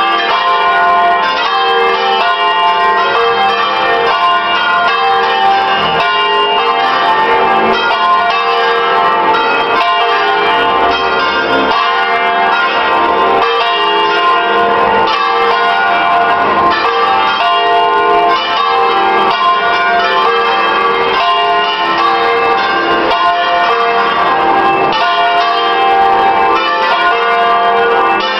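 Six church bells, the largest tuned to F3, ringing together in a full peal (plenum), their strokes overlapping without a break: the call to the Sunday Mass.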